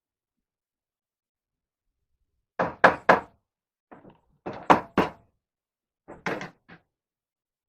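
Sharp knocks in three quick clusters of three or four strikes each, a second or so apart, starting about two and a half seconds in.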